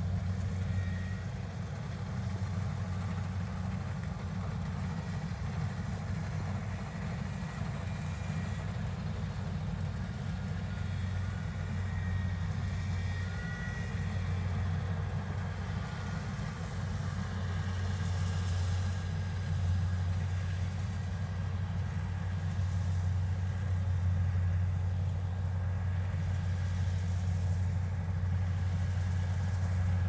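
Kubota DC70 Plus rice combine harvester's diesel engine running steadily under load while it cuts rice, a low, even hum with faint higher machinery whine on top.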